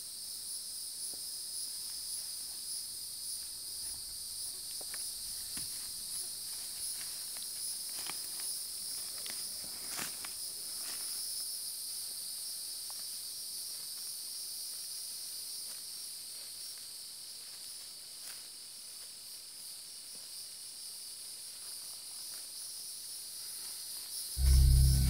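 A steady, high insect chorus droning in the woods, with a few soft rustles in dry leaves about a third of the way in. Low music comes in just before the end.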